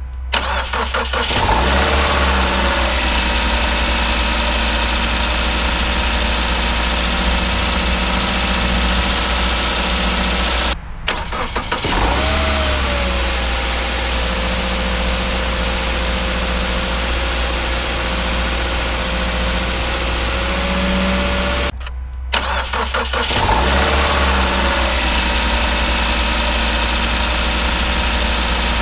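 2016 Subaru Legacy's 2.5 L four-cylinder engine cold-starting three times in a row. Each time it cranks briefly, catches and settles into a steady idle, with short silent gaps between the runs. These are before-and-after recordings of a friction-reducing oil treatment, which the maker says lessened the cold-crank grinding and smoothed the idle.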